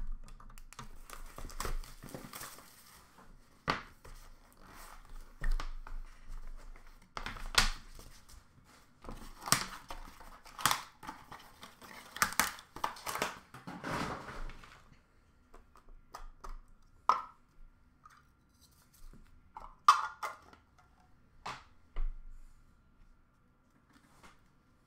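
A trading-card box being opened by hand: tearing and rustling of its cardboard and wrapping, with sharp clicks and knocks as the cased cards inside are handled. The rustling stops about halfway through, leaving scattered clicks.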